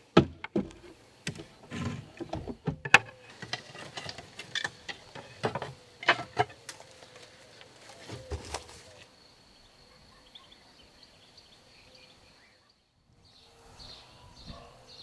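A run of irregular knocks and clatters for about nine seconds, then a faint steady high tone over quiet outdoor ambience.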